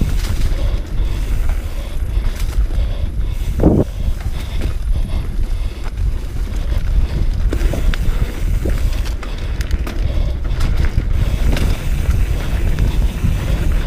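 Wind buffeting the microphone of a camera on a mountain bike racing down a rough dirt trail, with the constant clatter and rattling of the bike over the ground. A short pitched sound stands out about four seconds in.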